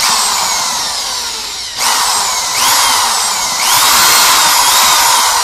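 Electric drill running in reverse, its bit boring into a snapped steel bolt in an engine block. It starts suddenly and speeds up in surges several times, the motor's whine rising with each one. The reverse drilling is not catching and spinning out the bolt.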